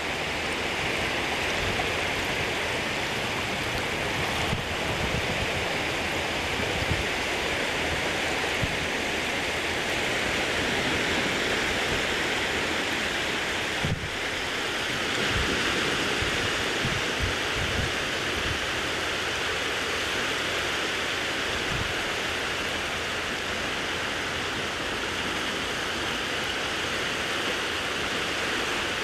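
Shallow sea water washing and rippling over sand at the water's edge, a steady rushing hiss.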